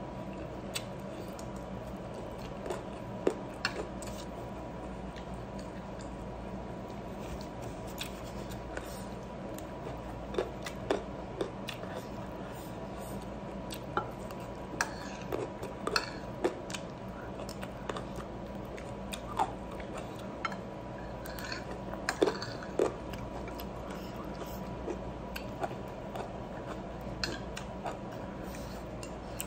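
Eating sounds at a table: scattered light clicks and clinks on a plate as food is picked up by hand, over a steady low hum.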